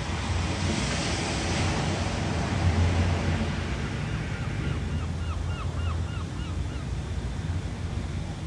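Ocean waves washing ashore, a surge swelling about a second in and then easing, over a steady low rumble. In the middle a quick run of short, high chirps sounds, about three a second.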